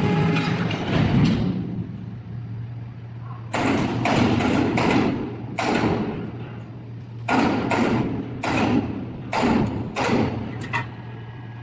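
Robotic medium-frequency spot-welding cell at work: a steady low hum under a series of about eight short, sudden noisy bursts, each under a second, coming at irregular intervals.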